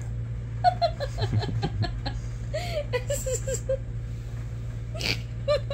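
A person giggling in quick runs of short chuckles while a cat paws at a blanket, with a couple of brief rustles of the blanket fabric, over a steady low hum.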